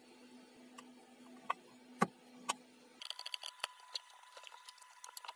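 Screwdriver and hands working a plastic two-gang wall socket: three sharp clicks about half a second apart near the middle, then a run of lighter ticks and rattles as the socket is handled.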